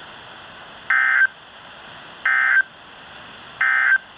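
Three short, identical bursts of Emergency Alert System SAME data tones, about a second and a half apart, over a steady hiss. Three such bursts after the spoken message are the end-of-message code that closes the alert.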